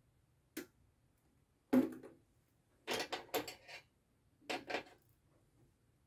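Clicks and knocks from push-button switch units being pressed and handled on a desk. There is one click, then a louder knock about two seconds in, then two quick clusters of clicks.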